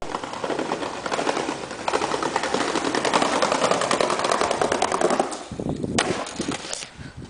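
Skateboard wheels rolling over rough concrete paving, a fast clattering rattle that grows louder as the board approaches. About six seconds in comes a sharp crack as the board is popped for a trick, followed by a few lighter knocks.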